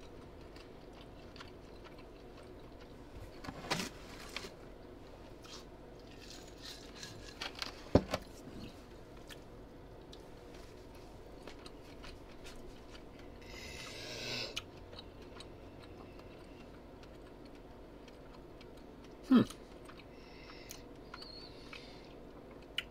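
A person quietly chewing a bite of steak over a steady low room hum, with a few sharp clicks about 4, 8 and 19 seconds in and a short hiss around 14 seconds.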